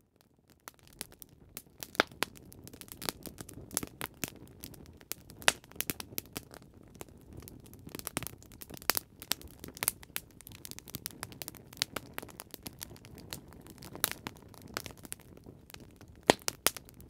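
Campfire crackling: dense, irregular pops and snaps over a low rumble, with a few louder pops standing out.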